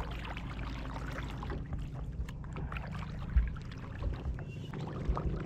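Sounds of a kayak on the water: scattered small knocks and clicks with light water noise, and intermittent low rumbles. One knock, about three and a half seconds in, is louder than the rest.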